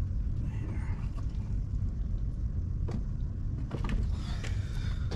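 Steady low rumble with a few sharp clicks, one about three seconds in and a quick cluster just after, from hand tools being handled while a circuit breaker is worked out of the panel.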